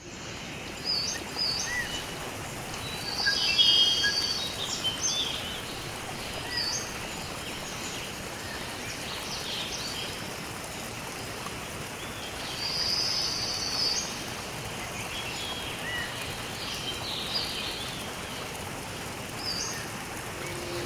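Several birds chirping and trilling over a steady rushing background noise of the outdoors, with no music.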